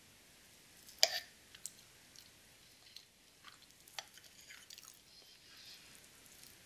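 Metal fork cutting through a slice of baked cheesecake and clinking against a ceramic plate: soft moist cutting sounds with a few sharp clicks, the loudest about a second in and another about four seconds in.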